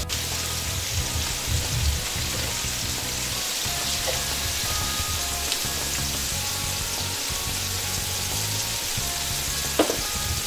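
Ground-beef hamburger patties sizzling steadily on a hot stovetop griddle, with a short knock near the end.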